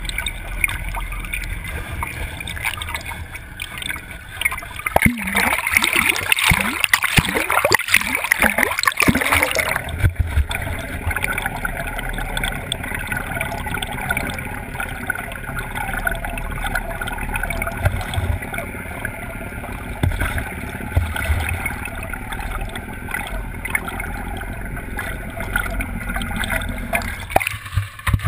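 Lake water gurgling and splashing around a net-mounted camera dragged through the water from a moving boat. The splashing is heaviest from about five to ten seconds in, then settles into a steadier rush.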